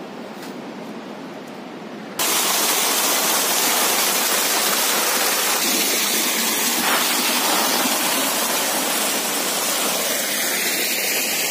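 Loud, steady rush of fast-flowing water, a mountain torrent or waterfall, cutting in abruptly about two seconds in after quieter ambience.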